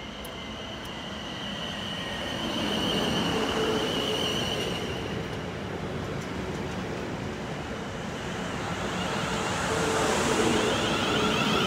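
Siemens Desiro Class 450 electric multiple unit pulling into the platform and running past close by. The rumble of wheels on the rails grows louder as the carriages pass, with a steady electric whine over it.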